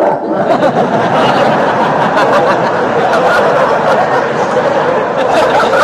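Audience laughing, many voices at once in a dense, steady mass of sound.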